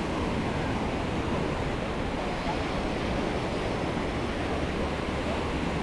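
Small waves washing on a sandy beach, a steady rushing noise.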